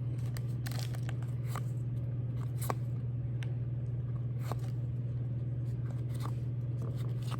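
Baseball cards being handled and flipped through, with scattered light clicks and snaps of card edges, over a steady low hum.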